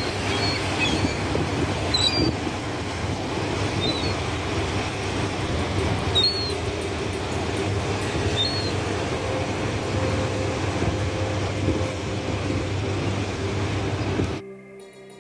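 Steady outdoor mechanical rumble with a low hum, broken by short high bird chirps every two seconds or so; it cuts off abruptly near the end.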